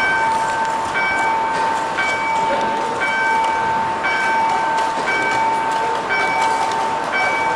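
EMAVE "Campanario" electronic crossing bell sounding at an active level crossing: a steady tone with a higher chime repeating about once a second, over a steady rush of noise.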